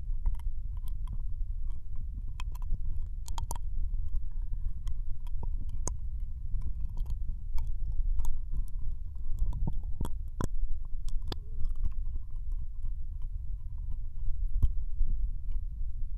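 Binaural ASMR ear licking, heard in one ear: wet tongue and lip clicks and smacks come at an irregular pace, over a constant low rumble.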